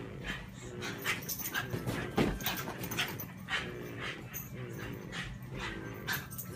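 A dog whining and whimpering in a string of short wavering calls, about two a second, with sharp little yips among them.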